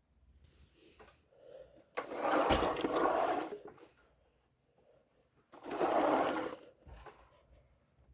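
A Hanil electric fan's motor buzzing in two short bursts: one starts sharply about two seconds in and lasts about a second and a half, and a shorter one comes about a second later.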